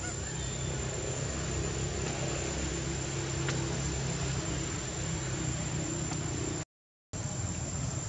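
Steady outdoor background noise, a hiss over a low rumble, with a thin steady high-pitched whine running through it. The sound cuts out for a moment about seven seconds in.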